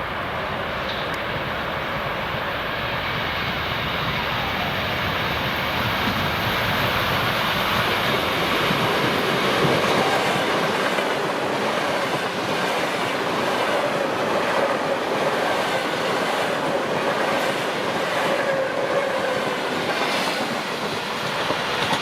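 EP2D DC electric multiple unit (suburban electric train) running past, its wheels clacking over the rail joints. The sound grows louder over the first half and then holds steady.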